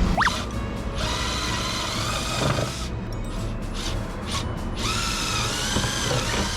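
Cordless power tool motor running in two bursts, its pitch dipping and recovering as it works under load in wood.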